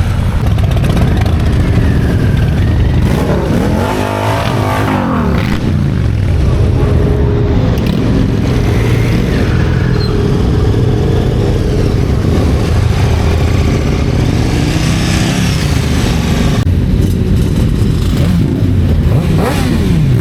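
Motorcycles and traffic riding past one after another, engines running under a constant rumble, with a bike going by and revving about four seconds in, its pitch rising and falling as it passes.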